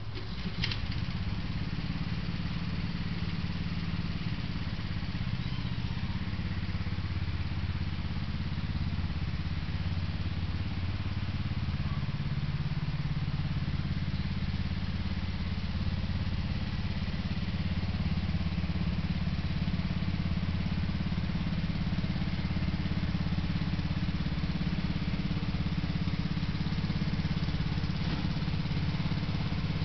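An engine running steadily at a low, even drone, with no change in speed.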